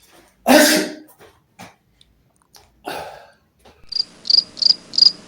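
A man sneezes loudly once, and about three seconds later there is a second, softer burst. From about four seconds in, crickets chirp steadily at about three chirps a second: the comic 'awkward silence' crickets.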